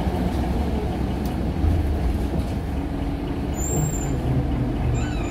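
Scania L94UB Wright Solar single-deck bus heard from inside the passenger saloon: its diesel engine and running gear give a steady low rumble, with a brief high-pitched squeak about three and a half seconds in.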